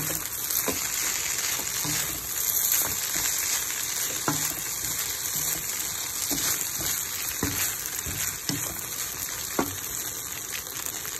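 Pansit noodles and vegetables sizzling as they are stir-fried in a pan, a steady frying hiss. Now and then the spatula knocks and scrapes against the pan as the noodles are tossed.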